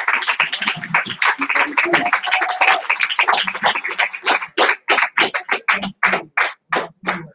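Audience applauding, dense at first, then thinning out about halfway through into scattered single claps that die away near the end.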